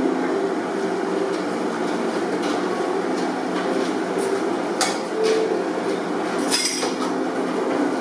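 Light clinks of chopsticks and ceramic dishes at a sushi counter, a few sharp ones about five seconds in and again shortly before seven, over a steady room hum with faint background murmur.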